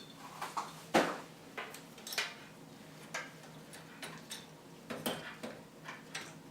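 Scattered plastic and metal clicks and knocks as a CPU cooler is handled and fitted back onto the processor, the loudest knock about a second in.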